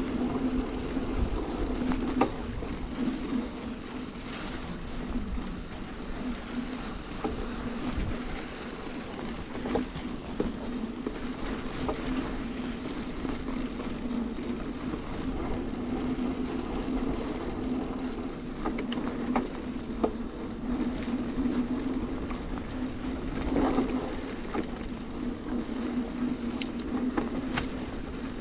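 A bicycle rolling along a dirt road, its tyres giving a steady hum over the rough surface, with frequent small clicks and rattles from the bike and the ground.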